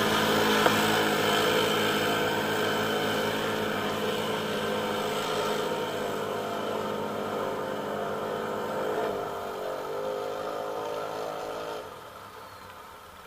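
Quad ATV engines running as the machines wade through a shallow river and pull away, the sound slowly fading. It drops off sharply near the end.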